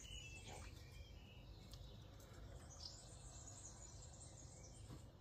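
Near silence: quiet garden ambience with a few faint bird chirps in the first second.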